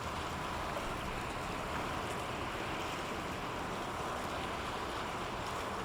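Steady rushing noise of water and wind by the sea, even in level throughout, with no distinct events.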